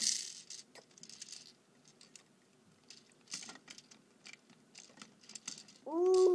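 Scattered small clicks and scratches of a toy dump truck being handled and played with, with a short hiss at the start. Near the end a steady pitched tone sounds for about a second and cuts off.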